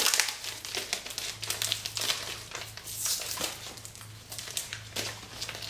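Paper packing and tape-wrapped packaging rustling and crinkling as items are dug out of a box by hand, in irregular scrapes and crackles, over a faint steady low hum.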